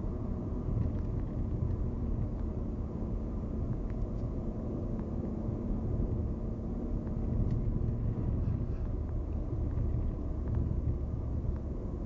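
A car driving steadily, heard from inside its cabin: an even low rumble of engine and tyres on the road.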